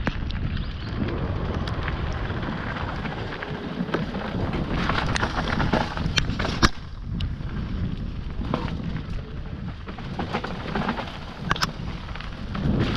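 Wind buffeting a helmet-mounted action camera's microphone as a mountain bike rides fast down a dirt trail. Tyre noise and sharp clacks of the bike rattling over bumps and roots come through it, the loudest knock a bit past halfway.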